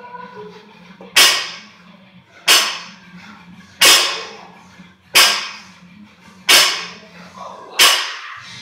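A 115 lb barbell with bumper plates is set down on the gym floor at each rep of a deadlift set. Six sharp bangs of the plates hitting the floor come about one every 1.3 seconds, each with a short ring-out.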